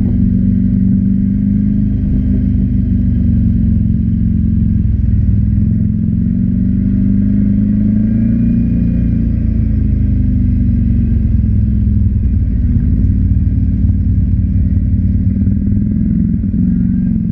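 ATV engine running steadily, its pitch rising and falling gently with small throttle changes.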